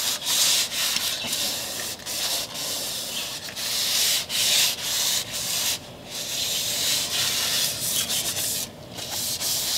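Sandpaper rubbed back and forth by hand over a two-part polyurethane topcoat on a fiberglass boat hull, in repeated strokes with a couple of short breaks. The paint is being sanded smooth to take down pebbly bumps in the coat.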